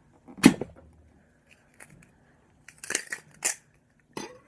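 Thin plastic shell of a Stiga 2-star ping pong ball cracking and snapping as it is cut open: one loud crack about half a second in, then a cluster of sharper snaps near three seconds and another just before the end.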